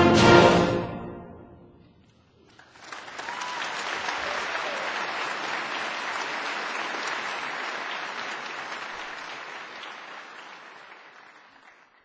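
A symphonic band plays its loud closing chord, which rings out and dies away over about a second and a half. After a brief pause the audience applauds steadily, then the applause fades away near the end.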